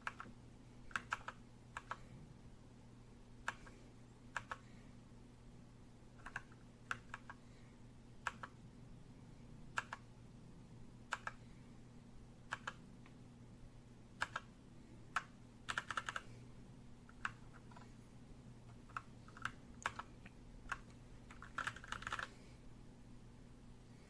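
Keys of a Royal Kludge RK96 mechanical keyboard being pressed, sharp clicky keystrokes coming one by one at irregular intervals, with a couple of quick runs of several keys, over a faint steady low hum.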